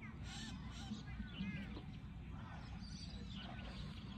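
Small birds chirping: a string of quick, curved calls, busiest about a second in, over a low steady background rumble.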